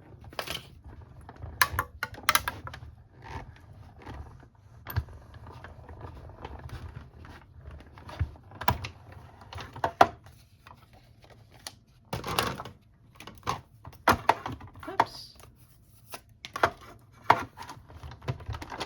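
Stampin' Cut & Emboss Machine, a hand-cranked die-cutting machine, running a plate sandwich with a die and cardstock through its rollers. It makes irregular clicks and clacks of the plastic cutting plates, with louder knocks about two, ten and twelve seconds in.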